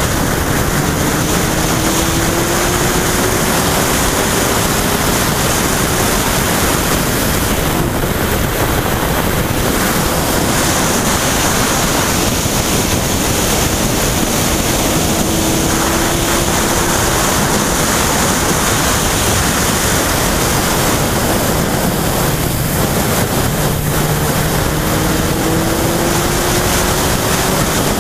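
Loud, steady wind noise rushing over the microphone of a camera mounted on a Yamaha FZ1 motorcycle at road speed. The bike's inline-four engine is faintly heard beneath it, its pitch rising as it accelerates three times.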